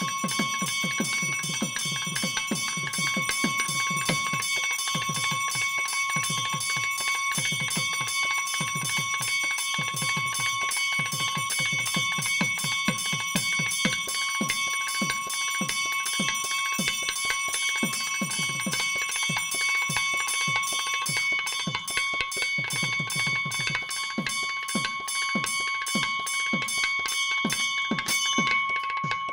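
Temple bell rung rapidly and without a break for the pooja, a steady ringing tone renewed by quick strokes. Near the end the striking stops and the bell rings on.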